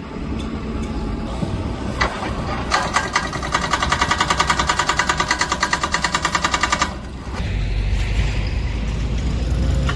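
Hydraulic breaker on a JCB backhoe hammering the concrete of a bridge deck, a rapid steady pounding of about ten blows a second that starts a little under three seconds in and stops about four seconds later, over the running diesel engine. Near the end a low engine rumble of the roadworks machinery takes over.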